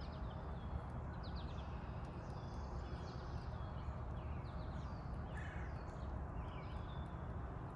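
Outdoor background: birds chirping faintly, several short falling chirps scattered throughout, over a steady low rumble of ambient outdoor noise.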